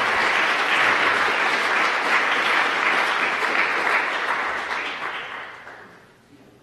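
Audience applauding, a dense steady clapping that dies away over the last two seconds.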